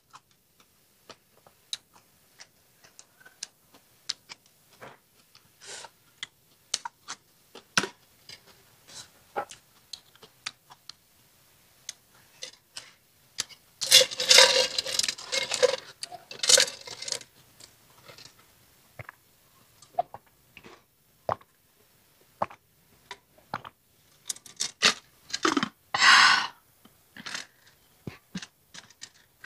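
Close-miked mukbang eating sounds: chewing and lip smacks, with scattered small clicks of chopsticks against the dishes. Two longer, louder mouth noises come about halfway through and near the end.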